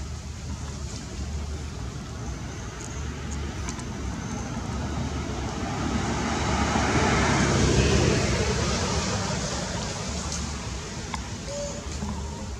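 A motor vehicle passing by, its noise swelling to its loudest about two thirds of the way through and then fading, over a steady low rumble of outdoor background noise.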